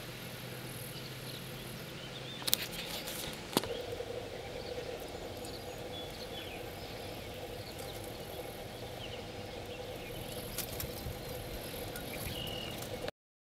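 Marsh ambience with steady insect chirring, like crickets, as a high hiss, and two sharp clicks about two and a half and three and a half seconds in. The sound cuts off abruptly near the end.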